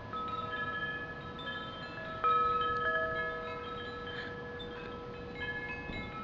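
Noisy wind chimes blown by gusty wind, several notes ringing on and overlapping, with the loudest strike about two seconds in.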